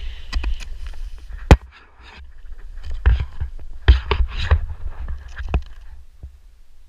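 Snowboard sliding and scraping over snow, with a low wind rumble on the microphone and a series of sharp knocks. The loudest knock comes about a second and a half in, and a cluster of them follows about three seconds in.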